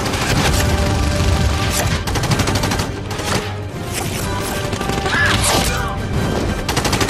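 Bursts of automatic rifle fire over an orchestral film score, with a rapid sustained burst near the end.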